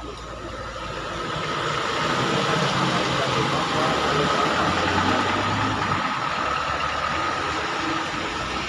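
Heavy rain falling, with a motor vehicle's engine running. The engine grows louder over the first couple of seconds, then slowly fades.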